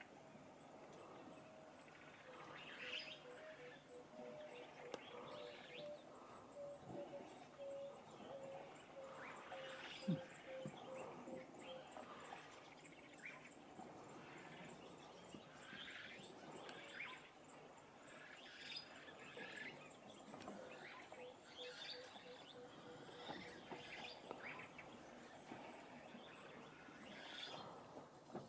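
Faint wild birdsong: several birds giving short chirps and calls, with one bird repeating a long, even run of low notes through the first half and again later. A single sharp knock about ten seconds in.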